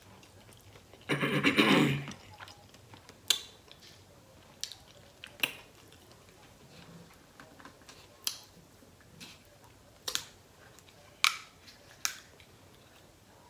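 Close-miked eating of a sauced buffalo wing: a loud noisy bite about a second in, then chewing heard as scattered sharp wet smacks and clicks, about eight over the next ten seconds.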